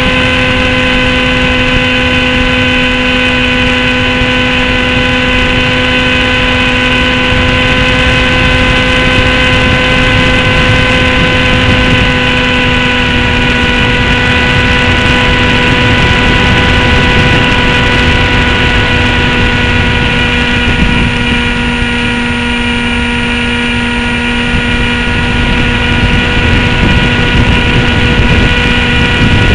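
Small radio-controlled airplane's motor and propeller whining at a steady pitch, with wind rushing over the onboard camera's microphone. The whine eases a little about two-thirds of the way through and picks up again near the end.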